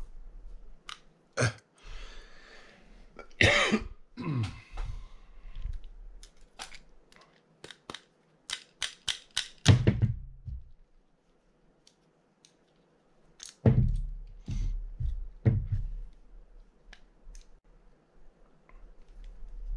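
Small metal parts and tools of a Penn Spinfisher 750SS spinning reel clicking and clinking during hand work on the reel, with a quick run of clicks a little before the middle and a few dull knocks.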